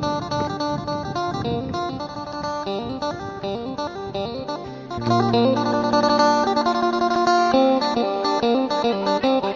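Background music led by a plucked guitar, playing a quick run of notes, which grows louder about halfway through.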